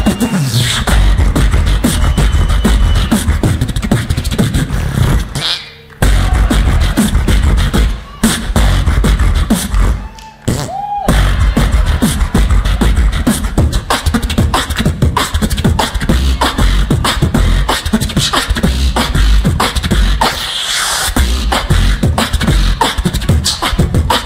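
Beatboxing into a handheld microphone: a fast, rhythmic run of raspberry-blown lip buzzes and mouth percussion with deep bass. It breaks off briefly three times in the first half, once with a short rising-and-falling vocal tone.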